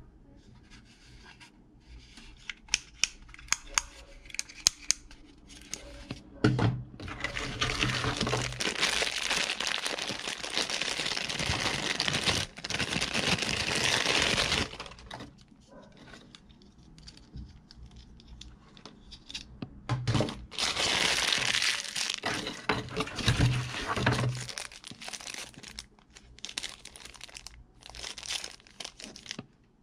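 Clear LDPE plastic packaging bag crinkling and tearing as it is pulled open and off a small packed item. The noise comes in two long loud spells with quieter rustling between them, and a run of sharp clicks comes first.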